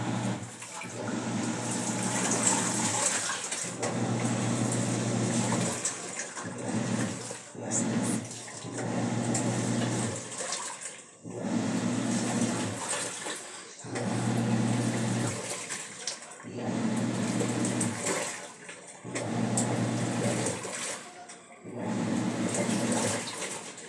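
Panasonic 12 kg washing machine washing a load: water and clothes sloshing over a low motor hum in repeated surges of about two to three seconds, each broken by a short pause as the wash action stops and starts again.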